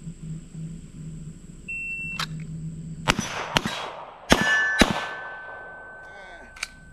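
Electronic shot timer's start beep, then four quick gunshots at steel targets about a second after it, with steel plates left ringing in a lingering metallic tone after the later hits. A fainter sharp crack follows near the end.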